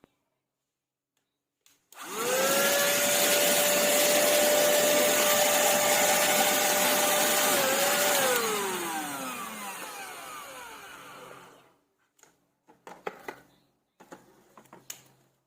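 ST6101 cordless car vacuum cleaner switched on: its motor spins up quickly to a steady high whine over a loud rush of air. About six seconds later it is switched off and the whine falls away as the motor spins down. A few light clicks and knocks follow.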